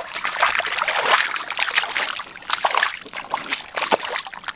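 Hands sloshing and squelching through thin, watery mud, making a run of irregular wet splashes.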